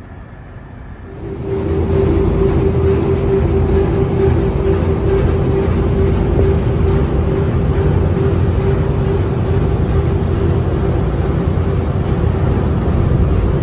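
A tugboat's diesel engines running underway, heard from on board as a steady heavy rumble with a constant hum. It starts about a second and a half in, after a quieter stretch.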